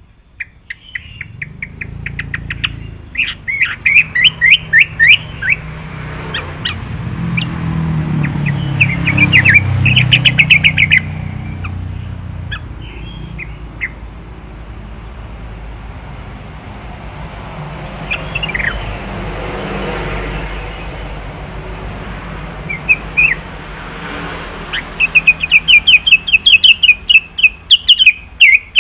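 Yellow-vented bulbul (trucukan) singing in loud bursts of rapid, repeated chirping notes, one near the start, one in the middle and a long run near the end. A low rumble swells twice underneath.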